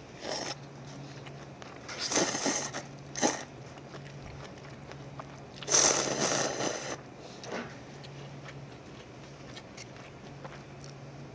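Noodles being slurped from a cup of instant ramen: a short slurp at the start, a longer one about two seconds in, a brief one just after, and the loudest, longest slurp about six seconds in.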